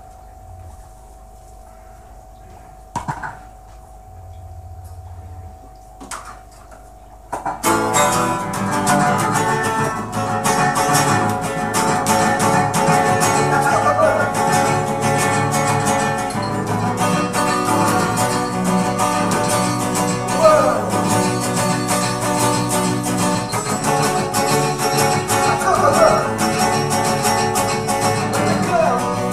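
A faint steady tone with a few clicks, then about seven seconds in an acoustic guitar starts being strummed steadily and loudly.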